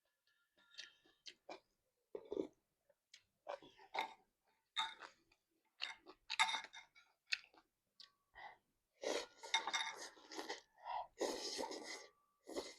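Close-miked mouth sounds of eating instant noodles with squid: irregular wet chewing and smacking, growing busier in the second half, with occasional light clinks of utensils on the dish.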